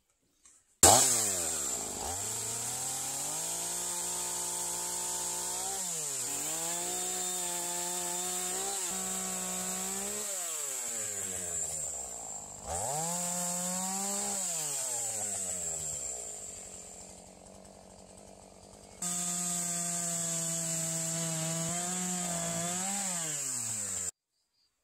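Two-stroke gasoline chainsaw revving up and down over and over as it cuts into a log. The engine note sinks low for a few seconds in the middle, jumps straight back up, and stops abruptly near the end.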